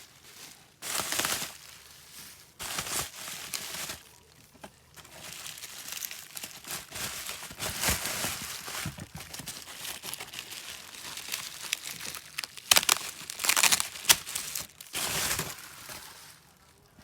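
Packaging being handled, rustling in irregular bursts, the loudest cluster a little past the middle.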